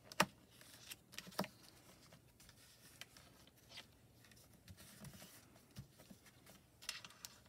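Quiet handling at a paper-crafting stamp platform: a sharp click just after the start and another about a second and a half in, then faint taps and paper rustles as small die-cut paper pieces are set back in place with a pointed tool and fingertips.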